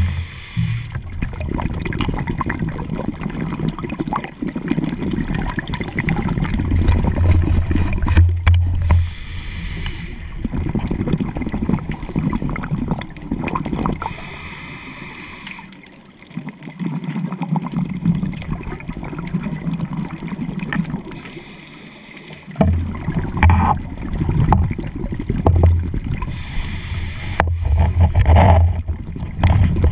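Scuba diver's regulator breathing heard underwater: a hissing inhale every several seconds, each followed by a burst of exhaled bubbles.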